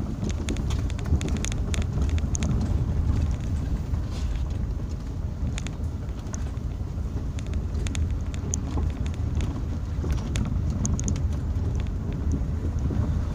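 Inside the cabin of a 2001 Hyundai Santa Fe driving on a rough dirt and gravel track: a steady low rumble of engine and tyres, with scattered light clicks and rattles.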